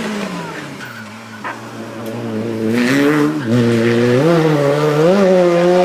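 Race car engine coming off the throttle with falling revs, pulling at low revs for a moment, then accelerating hard with the revs climbing in steps through quick gear changes and growing louder.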